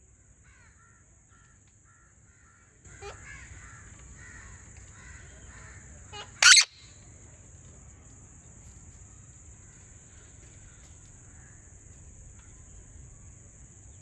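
Rose-ringed parakeet giving one loud, short, harsh screech about six and a half seconds in, with soft repeated chattering notes before it.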